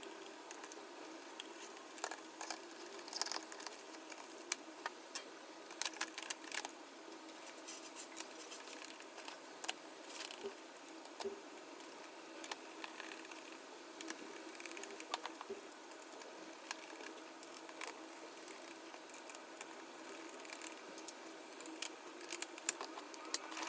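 Scattered light clicks and taps of hands handling and fitting small hard parts during a battery replacement, over a steady low hum, with a busier flurry of clicks near the end.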